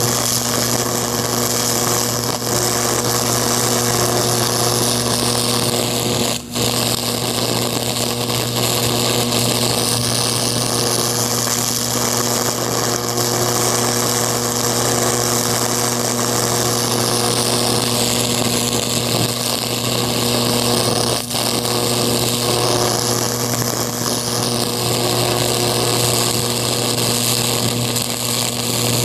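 High-voltage electric arc burning into a pumpkin's skin from a hand-held electrode: a steady electrical buzz and hum with a loud hissing crackle, dipping briefly twice, about six seconds in and again about twenty-one seconds in.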